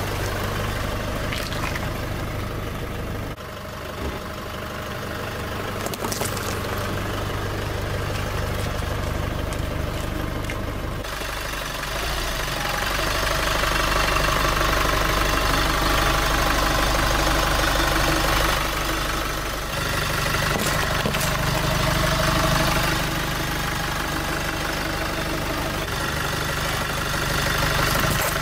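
Pickup truck engine idling and running at a crawl, steady, with its note shifting abruptly a few times.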